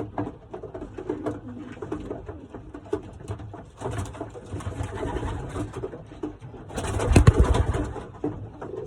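Racing pigeons cooing in a loft, repeated low, wavering coos. A louder burst of rustling noise comes about seven seconds in.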